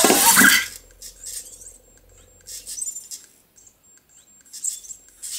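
Anki Cozmo toy robot acting out a jump command: a loud short burst of sound at the start, then quieter clicks and whirs from its small motors and plastic body.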